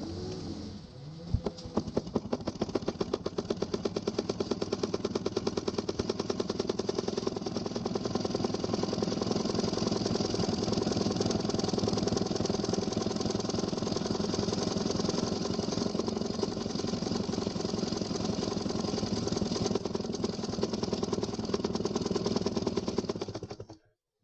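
Mini electric sewing machine running, its needle mechanism stitching with a fast, even ticking of about ten strokes a second over the motor's hum. It starts about a second and a half in and stops abruptly near the end.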